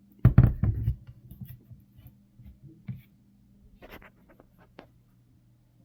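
A 3D-printed plastic crossbow being handled: a burst of knocks shortly after the start, then scattered light clicks and taps. A faint steady hum runs underneath.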